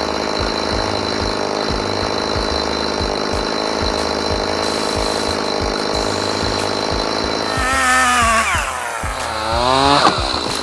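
Stihl two-stroke chainsaw running at high revs; about three-quarters of the way through the throttle is let off so the engine pitch falls, then it revs back up near the end.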